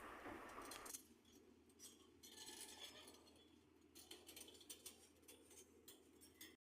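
Near silence: faint background hiss with a few scattered light clicks, cutting to dead silence near the end.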